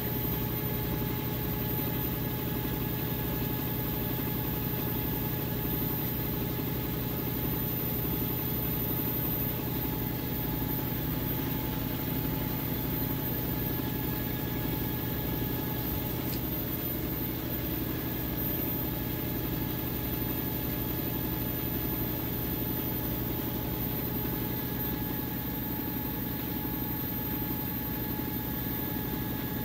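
LG Twin Wash Mini pedestal washing machine running: a steady motor hum with an even low throb and a few fixed whine tones.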